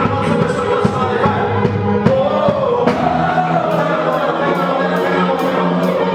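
Gospel worship music: voices singing over a band. Drum hits in the first half give way to a steady ticking cymbal pattern from about the middle on.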